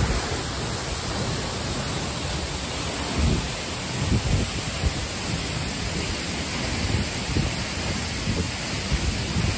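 Waterfall's water falling into the plunge pool, a steady even rush, with a few low thumps on the microphone.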